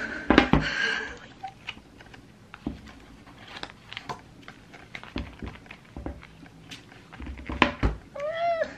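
Hands handling a paperback book and paper goods on a table: pages riffled and turned, with light taps and knocks throughout and a thump near the end. Just before the end comes a short high tone that rises and falls in pitch.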